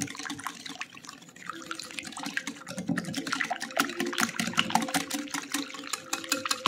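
A wire whisk beating cream of coconut in a glass mixing bowl, mixing its separated fat back in. It makes a rapid wet sloshing with quick ticks of the wires against the glass, and the pace picks up about two seconds in.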